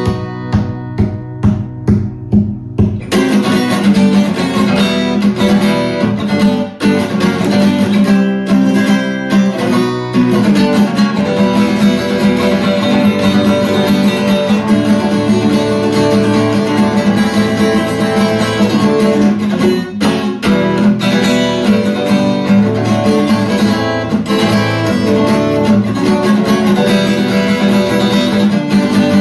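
Guitar music: a few separate strummed chords at an even beat, then from about three seconds in a fuller, continuous strummed accompaniment.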